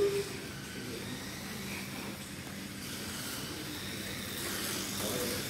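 Slot car's small electric motor whirring faintly and steadily as it runs around the track.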